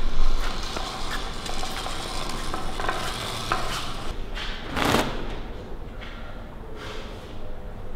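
Fabric rustling and crackling, with one loud flap of a cloth shaken out about five seconds in.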